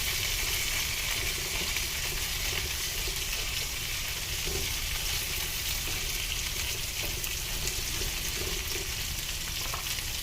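Lamb loin chops, potatoes and carrots sizzling steadily in a frying pan, cooking down with tomato paste and garlic.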